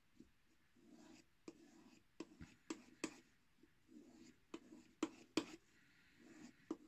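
Pocket knife blade being stroked back and forth on a strop dressed with white wax compound, honing the edge: faint rubbing strokes repeating every half second or so, with a few short sharp clicks among them.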